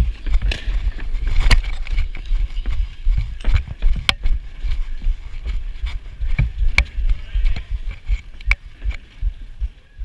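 Irregular rumbling wind and movement noise on a head-mounted action camera as the wearer moves about, with sharp knocks of hard rubber lacrosse balls striking sticks and boards every second or two.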